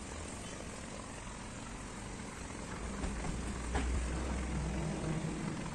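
Low rumble of a motor vehicle's engine over steady background noise. The rumble swells about three seconds in, with a single sharp click near the middle.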